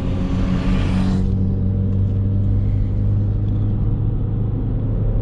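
Chevrolet Beat's small petrol engine with a K&N air filter, running steadily under load while climbing a winding road, with a deep even drone. A brief rushing noise fades out about a second in.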